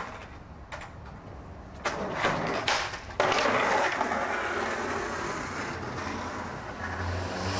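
Skateboard on concrete: a few sharp clacks and knocks of the board, then, from an abrupt change a little past three seconds in, the steady rolling noise of skateboard wheels on rough pavement. A low hum comes in near the end.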